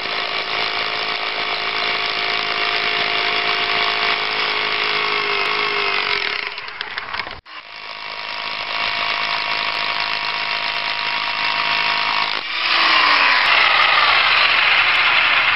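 Electric rotary hammer running, its motor whining over a harsh hammering noise. About halfway through it winds down and stops briefly, then starts again, and runs louder and harsher over the last few seconds.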